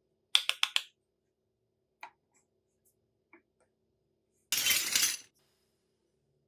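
Small hard toy kitchen pieces clinking together: four quick sharp clicks, then a single click and a faint tick. About four and a half seconds in comes a short rough noise lasting under a second.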